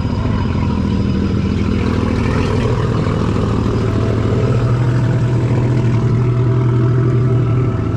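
Racing jetski engine running at a steady low pitch. It slowly gets louder, and its pitch steps up slightly about three and a half seconds in.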